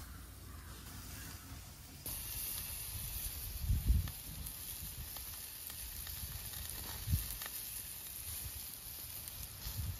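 Meat-and-onion skewers sizzling on a wire grill over campfire embers: a steady hiss that starts suddenly about two seconds in, after a quieter stretch. Twice a low thump stands out.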